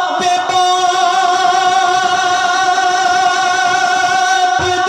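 A man's voice sustaining one long sung note with a slight waver, amplified through a handheld microphone, in the style of a naat or rubai recitation. The pitch shifts just before the end.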